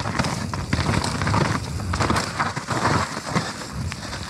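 Nukeproof Mega mountain bike descending a wet, rough trail: steady tyre noise with irregular clattering knocks from the bike.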